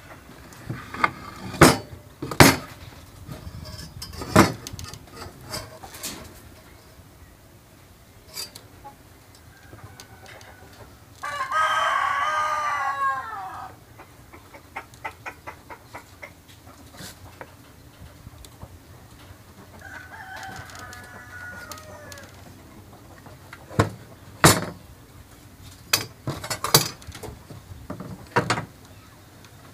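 A rooster crows once, a long call about eleven seconds in, with a fainter call some ten seconds later. Around it come scattered sharp knocks and taps of a steel square and boards being handled on a workbench.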